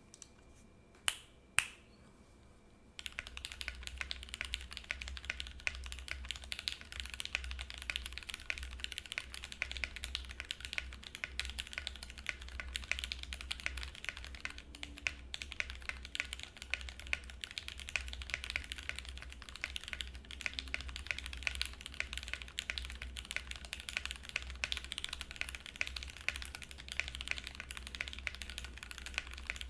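Typing on a Think6.5 V2 mechanical keyboard with H1 switches in Cherry top housings on an FR4 plate: a fast, unbroken stream of keystroke clacks that starts about three seconds in. Before that there are two single sharp clicks.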